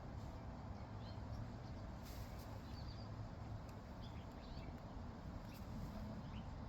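Quiet steady low hum of background ambience, with a few faint, short high chirps scattered through it.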